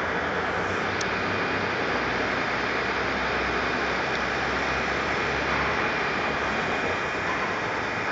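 Steady outdoor street noise, mostly road traffic. A deeper low rumble comes in about a second and a half in and fades out near six seconds.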